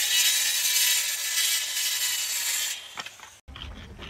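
Handheld electric circular saw running and cutting through a wooden plank, a loud hiss-like cutting noise over the motor's whine, which falls away about two-thirds of the way through. A single click follows.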